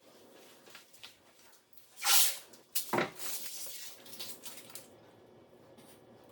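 Painter's tape being pulled off the roll in two quick rips, the first the louder, followed by a few lighter clicks and rustles of handling.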